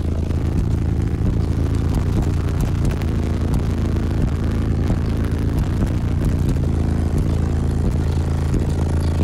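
Two DD Audio ESP 9918 18-inch subwoofers in a ported box tuned to 32 Hz playing loud, deep bass, heard from inside the car's cabin, with the car's body panels rattling.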